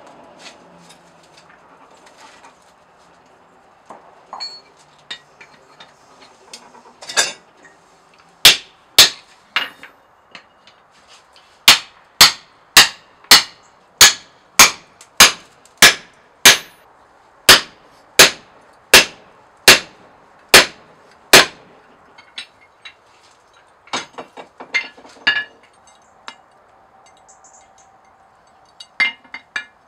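Hand hammer blows on hot leaf-spring steel at the anvil, driving a punch into the axe blank to open the eye: three strikes about eight seconds in, then a steady run of about fifteen blows at roughly one and a half a second. Lighter taps and clinks of tools before and after.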